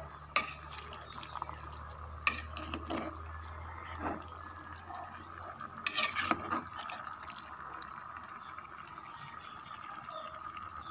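Metal spoon stirring wet, shredded bamboo shoots in coconut milk in a metal pot, scraping and knocking against the pot, with a few sharper clinks about half a second, two seconds and six seconds in.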